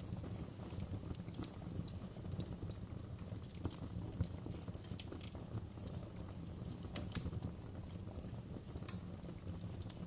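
Wood fire burning in a fireplace, crackling: irregular sharp pops and snaps over the low steady rumble of the flames, with a few louder snaps.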